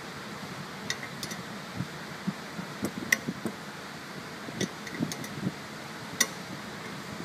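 A ratchet and a combination wrench clink against the turbo-to-manifold flange bolts and the steel exhaust manifold while the flange is being tightened. There are scattered sharp metallic clicks with short ringing, the loudest a little past three seconds and again about six seconds in, with soft knocks between them, over a steady hiss.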